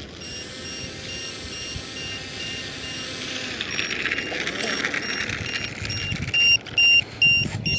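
RC Sukhoi Su-30 model jet's electric motor running as it taxis, with a high steady whine over its hiss for the first few seconds. Short electronic beeps repeat about two and a half times a second throughout and become much louder about six seconds in.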